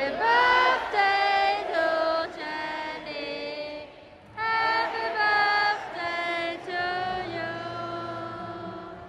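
A woman's voice singing a slow melody in held notes, with a short pause between phrases about four seconds in.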